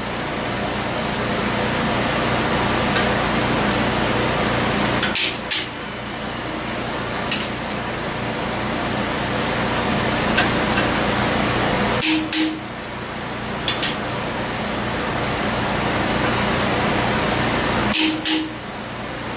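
Torque wrench clicking on the head bolts of a Ford 460 big-block as each bolt reaches its set torque of 140: three sharp double clicks about six seconds apart, with a few fainter clicks between.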